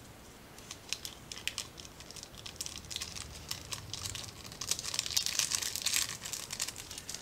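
Ramen seasoning packet crinkling as it is handled and squeezed out over a mixing bowl, a scatter of crackles that grows dense about five seconds in.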